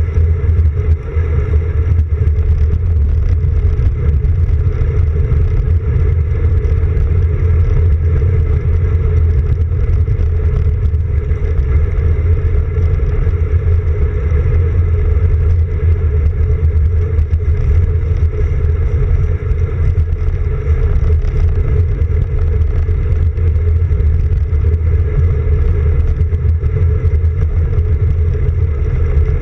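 Steady, loud rumble of wind buffeting and road vibration picked up by a handlebar-mounted camera on a road bike rolling along a paved path.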